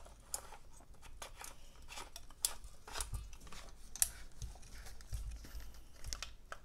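Plastic lightstick handle being twisted back together by hand over its battery compartment: a quick run of irregular plastic clicks and scrapes, with a few dull knocks in the middle.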